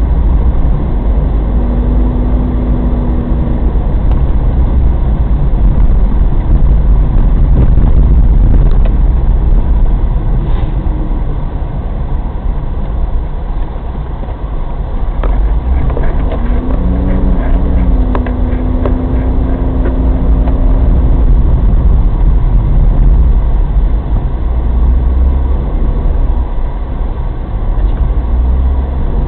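Daihatsu Terios Kid driving through blizzard snow and drifts: a heavy, steady low rumble of the moving car, with the engine note coming up and holding for a couple of seconds early on and again for about five seconds past the middle, where it glides up before settling.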